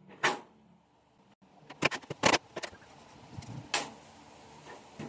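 Hammer tapping a small nail through cardboard into a wooden board: a handful of separate sharp strikes, the loudest a little over two seconds in.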